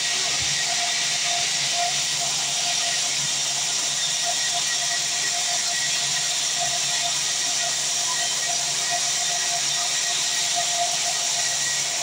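Vertical band sawmill running steadily: a continuous hiss from the moving blade and drive with a faint, wavering ringing tone.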